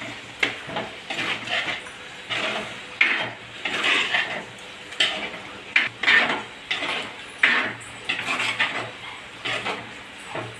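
A spoon stirring and scraping in a pot of chicken gravy, mixing in coconut paste, in repeated strokes about once a second.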